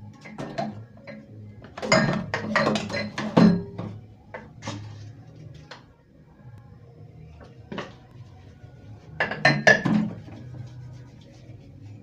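Dishes clinking and knocking in a stainless steel sink during hand washing-up. There is a burst of clinks about two seconds in, another near the end, and scattered single clinks between.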